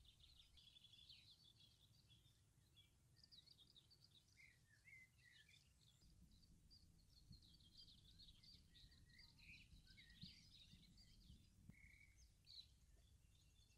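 Faint birdsong: several birds chirping and twittering in quick high notes throughout, over a low steady outdoor rumble.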